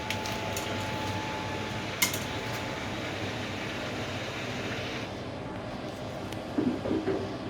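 Hoover AXI 10+6 washer dryer running a high-heat drying cycle, with the drum turning and a steady hum. A few light clicks come near the start, and a sharp knock about two seconds in.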